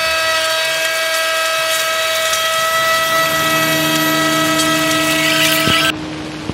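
Electric router running at speed with a steady high whine as it cuts along the edge of a timber floorboard to straighten it. A single knock comes just before the sound cuts off abruptly near the end.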